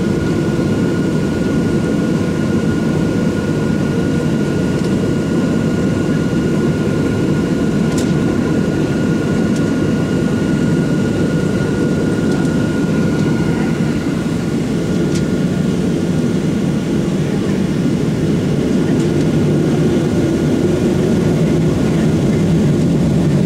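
Cabin noise inside a Boeing 737-700 taxiing on its CFM56 jet engines: a steady low rumble with a thin steady whine that fades out about halfway through.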